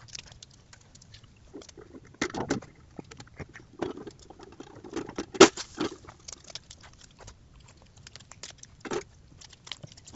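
Raccoon working at a hanging bird feeder: irregular clicking, rattling and scraping, with a few short louder knocks, the loudest about five and a half seconds in.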